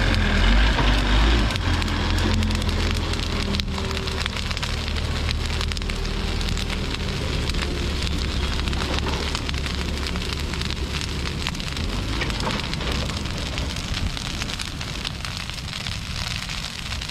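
Bonfire of hedge brush crackling steadily, with many sharp pops. A Manitou telehandler's diesel engine runs underneath as a low hum, loudest in the first couple of seconds.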